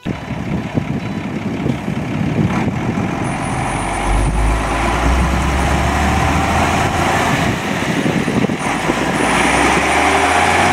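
Unimog 4x4 camper truck's diesel engine running as the truck pulls away across gravel, a deep rumble that swells about four seconds in.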